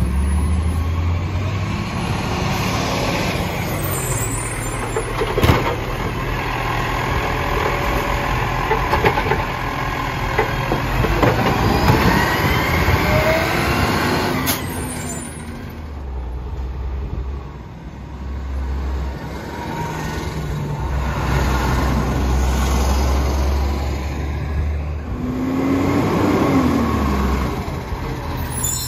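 Side-loading garbage truck's diesel engine running as it drives up and passes close by, then pulls away, with a couple of sharp air-brake sounds along the way.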